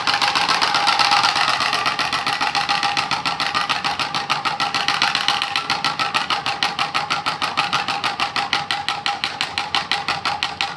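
A plastic card flapping against the spokes of a spinning bicycle rear wheel, with a plastic drink bottle fitted as a mock exhaust, making a rather loud motorbike-like buzz. It starts suddenly as a fast rattle and slows into separate rapid clicks as the wheel coasts down.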